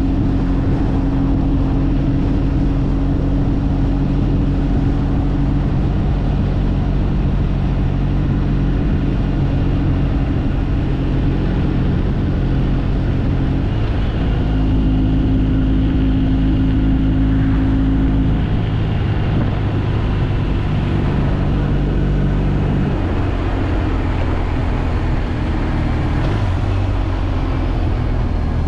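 Motorcycle engine running steadily while riding, over a constant rush of wind and road noise. The engine note steps to a different pitch several times, as speed or gear changes.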